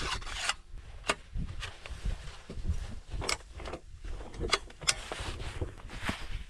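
Scattered knocks and clicks over a low rumble: handling noise of tackle and boat while a pike is being played on a spinning rod.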